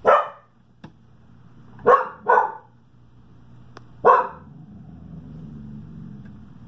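A dog barking four times: once at the start, twice in quick succession about two seconds in, and once more about four seconds in.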